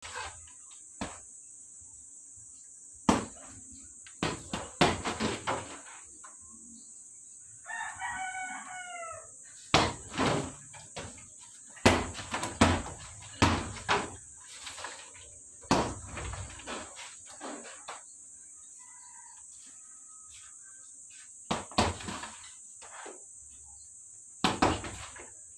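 Gloved punches landing on a hanging heavy bag in irregular flurries of sharp thuds. A rooster crows once, about eight seconds in.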